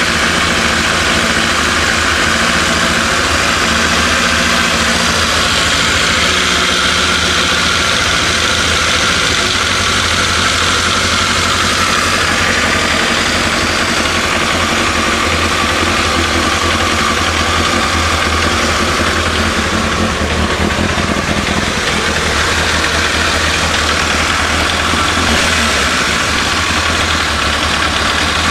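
1992 Kawasaki ZXR750 J's inline four-cylinder engine idling steadily.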